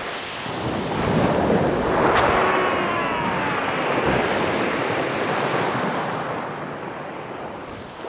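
Sea waves washing onto a shingle beach, the surf swelling about a second in and fading away toward the end, with wind buffeting the microphone.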